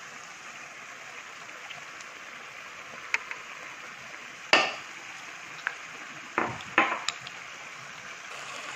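Pot of potato leaf stew simmering with a steady low bubbling hiss, and a few short clicks and knocks, about halfway in and several more near the end, as pieces of fish are tipped in from a bowl against the pot.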